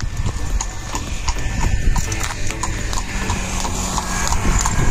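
Steady, rhythmic clopping knocks, about three a second, over continuous background noise.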